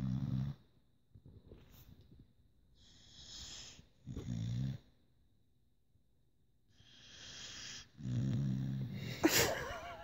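Staffordshire bull terrier snoring in deep sleep: a low snore about every four seconds, each one preceded by a breathy hiss. A sudden louder sharp sound comes near the end.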